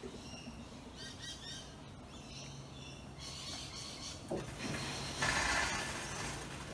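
Miele G4101 dishwasher cycling its water intake: a steady low hum starts a couple of seconds in, and a rushing hiss of water swells near the end. The machine keeps letting water in and stopping, then fails with a flashing warning light, which the owner suspects is a water-inlet fault.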